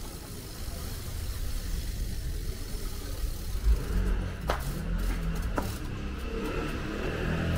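Wind rumbling on the microphone while riding a bicycle, with light rattles and two small clicks. Music fades in near the end.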